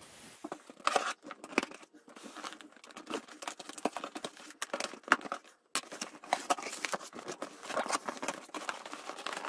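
Cardboard produce box being opened by hand: tape tearing and cardboard flaps and paper rustling and crinkling in irregular scrapes and clicks.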